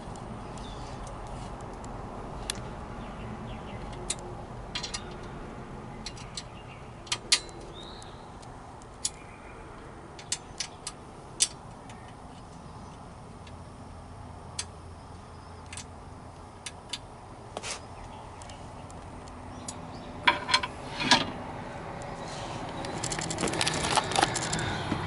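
Scattered sharp metallic clicks and clinks of a socket wrench and bolts as the bolts of a seat swivel base are tightened, with a louder, busier clatter of metal near the end.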